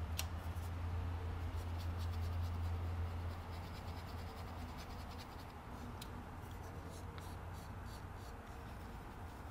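Wooden tongue depressors scraping and tapping against each other and the rim of a plastic bottle as thick gel coat pigment is scraped off one stick with another: a run of light scratches and small ticks. Beneath it a steady low hum that drops away after about three and a half seconds.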